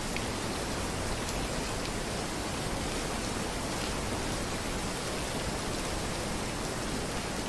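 Waterfall rushing steadily, a dense, even hiss of falling water.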